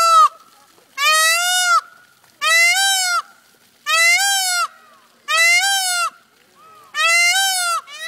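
Peacock (male Indian peafowl) calling: a loud series of about six pitched calls, each under a second long and arching up then down in pitch, repeated roughly every second and a half.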